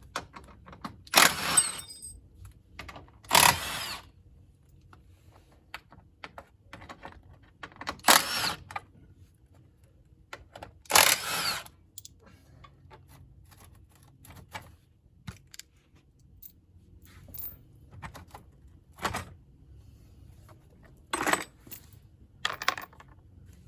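Tools and metal hardware being handled: about half a dozen short, sharp clatters and clinks spread through, with small ticks between them.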